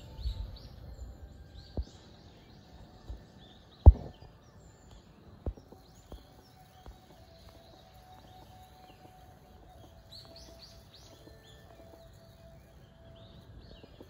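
Small birds chirping in short, high, repeated notes. A few sharp knocks break in, the loudest about four seconds in.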